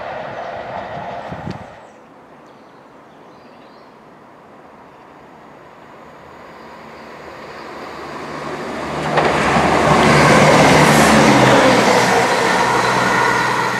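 A train passing on the railway: the beat of wheels over rail joints at the start cuts off suddenly. After a quieter stretch another train approaches, growing louder from about six seconds in and passing close by near the end, a rush of wheel noise over a steady low hum.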